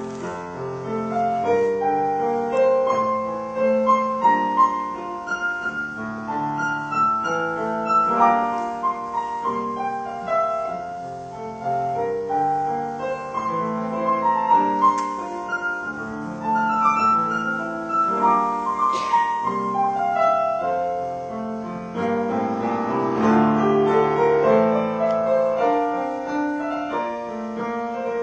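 Solo piano playing a melody over chords, note after note without a break.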